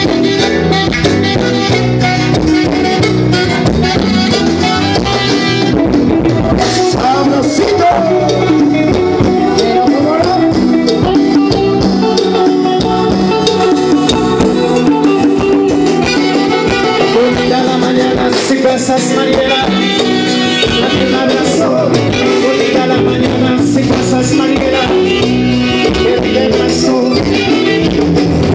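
A live Latin dance band playing through a loud stage sound system: saxophones, electric guitar, drums and keyboard in a steady, continuous groove.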